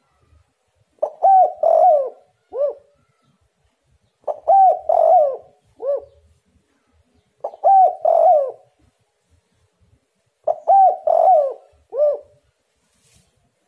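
Spotted dove cooing its repeated territorial call: four phrases about three seconds apart, each a quick run of two or three coos, most ending in a short separate coo.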